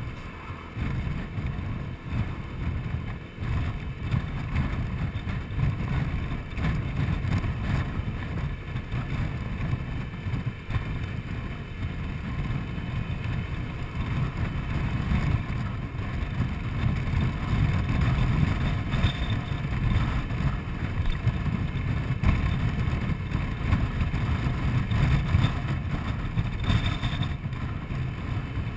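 Honda Forza 125 scooter riding along, its single-cylinder engine running under a steady low rumble of wind on the microphone.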